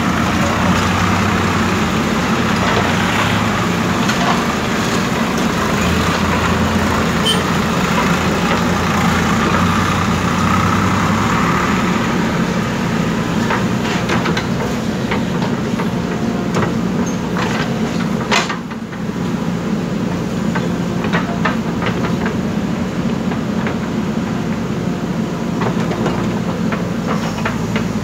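JCB 3DX backhoe loader's diesel engine running steadily under load as it digs, with a passing tractor's diesel engine adding a deeper hum for the first ten seconds or so. Scattered knocks and clanks come in the second half.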